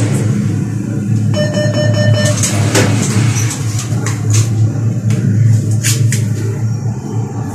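ATM transaction sounds over a steady low hum: a single electronic beep from the cash machine about a second and a half in, lasting just under a second, followed by a few sharp clicks as the card and cash are handled.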